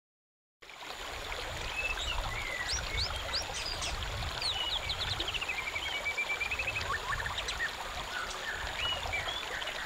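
Shallow stream running over rocks, a steady rush of water, with many birds chirping and whistling over it, including a quick trilled series. It starts abruptly just under a second in.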